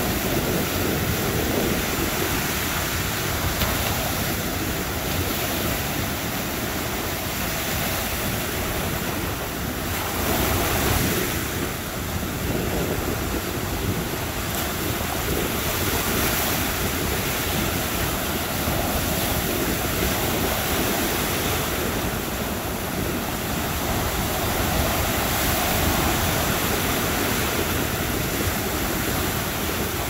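Mediterranean surf breaking in the shallows and washing up a sandy beach: a continuous rushing of foaming waves, swelling briefly about ten seconds in.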